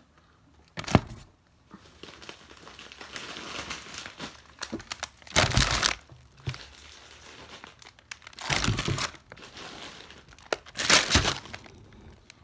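Plastic grocery packaging crinkling and rustling as food items are put back into a cardboard box, with a sharp knock about a second in and three louder rustles.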